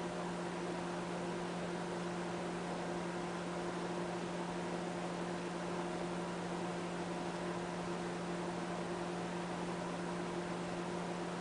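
Steady low electrical hum over a constant hiss, unchanging throughout.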